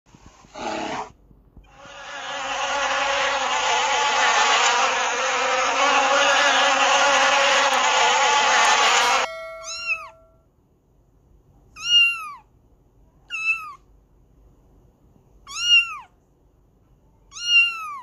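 A brief call, then several seconds of a loud, dense mass of overlapping animal calls that stops suddenly; then a cat mews about five times, each a short high call that rises and falls, about two seconds apart.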